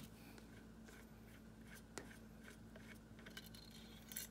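Near silence with a few faint clicks of a small screw and spring being handled as they are lifted out of the airgun's metal valve block: one click at the start, one about two seconds in, and a couple near the end.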